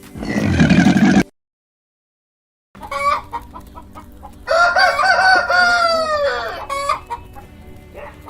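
Rooster crowing once, a long call that drops in pitch at the end, with short clucks before and after it. In the first second a different loud animal call is cut off abruptly, followed by a moment of silence.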